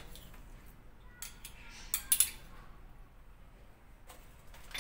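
Metal spoon clinking and scraping against a ceramic plate as ginger-garlic paste is spooned onto spice-coated fish. A few scattered clinks, with a sharp cluster of clinks about two seconds in.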